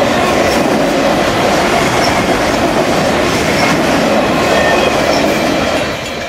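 Freight train of autorack cars rolling past close by: steady wheel and rail noise, easing off slightly near the end.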